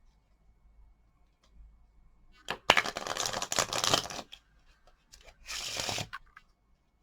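Rubik's Cube being twisted fast by hand: two spells of rapid plastic clicking and rattling, a longer one of under two seconds and then a shorter one, as the cube is scrambled.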